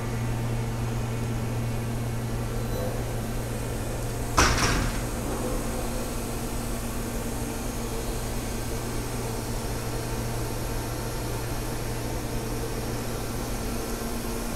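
Steady low hum of powered machinery, with one sharp knock that rings briefly about four seconds in.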